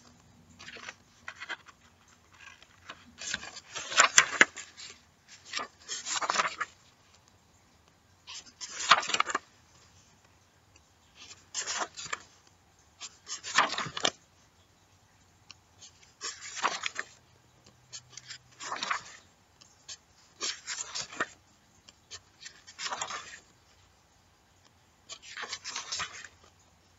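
Paper pages of a colouring book being turned one after another, a brief papery rustle roughly every two seconds, about a dozen in all.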